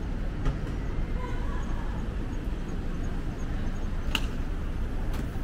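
City street ambience: a steady low rumble of traffic with faint voices of passers-by and one sharp click about four seconds in.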